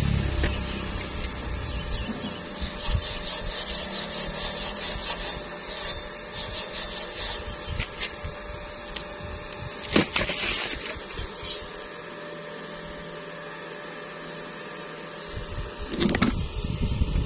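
Steel weld bead being scrubbed clean with a hand wire brush: a rapid, even back-and-forth rasp for about five seconds. A single sharp knock comes about ten seconds in, and rumbling handling noise near the end.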